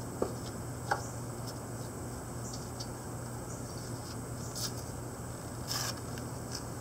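A few faint clicks and a brief scrape of a gloved hand handling a cut piece of square steel tubing in a chop saw's vise, over a steady low hum. The louder scrape comes near the end.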